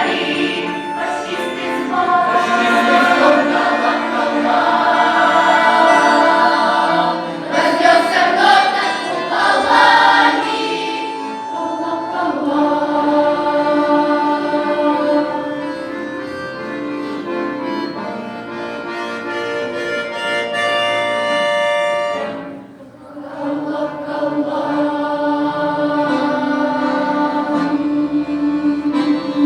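Folk-song choir of young voices singing with instrumental backing. The music drops briefly about two-thirds of the way through, then the choir and instruments come back in.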